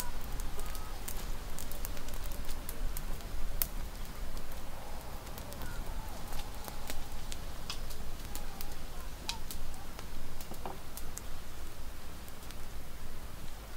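Wood fire crackling, with scattered sharp pops spread irregularly over the seconds, and a few faint chirps behind it.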